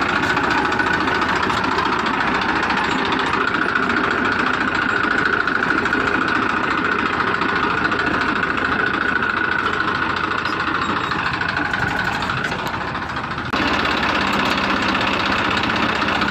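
An engine running steadily at idle with a rapid chugging beat. It sags slightly and then comes back abruptly near the end.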